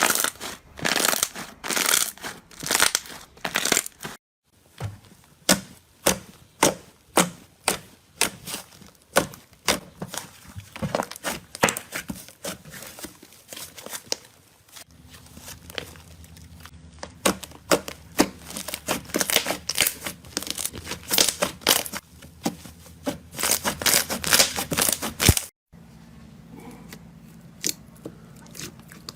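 Slime being squeezed and pressed by hand, giving dense crackling and popping in quick repeated squeezes, a couple per second. The sound breaks off abruptly twice.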